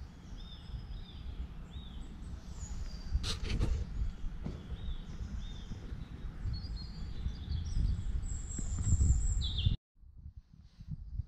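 Small woodland birds singing, with short high chirps repeated every half second or so and brief trills, over a low rumble. A sharp click comes about a third of the way in, and near the end the sound drops off abruptly to fainter birdsong.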